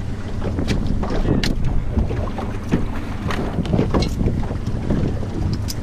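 Wind buffeting the microphone over the low steady hum of a small boat's motor. Scattered short clicks and knocks come from pliers working a hook out of a fish on the deck.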